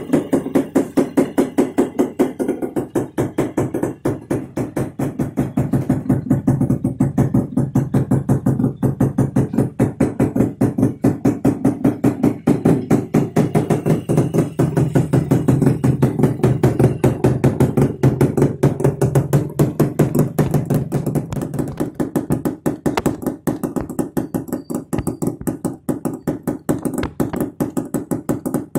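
Yamaha RX100's 98cc two-stroke single idling through an open exhaust with its DB killer removed: a loud, rapid, steady popping exhaust beat. The deepest part of the note drops away about three quarters of the way through.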